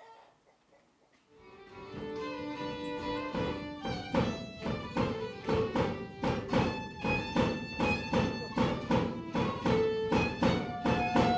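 Steirische diatonic button accordion playing a lively folk dance tune with a steady oom-pah beat, starting up about a second and a half in after near silence.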